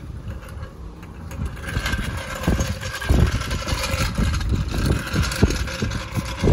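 Steel floor jack rolling across a concrete driveway, its wheels rattling and scraping, with uneven knocks and thumps as it is pulled along by the handle.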